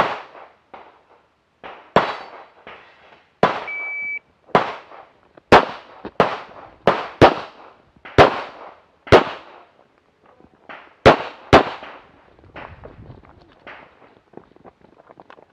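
Tanfoglio Limited pistol fired in quick succession, about a dozen shots, several of them in close pairs. A short steady beep sounds about four seconds in, and softer scuffing follows the last shots near the end.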